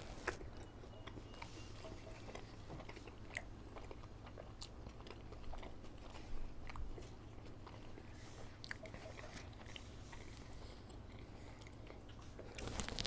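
A person chewing and biting McDonald's fast food close to the microphone, with many small scattered mouth clicks and crunches over a steady low hum. The eating gets louder near the end.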